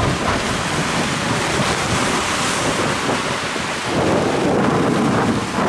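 Strong storm wind buffeting the microphone with a steady low rumble, over rough sea waves washing and splashing against a rocky breakwater.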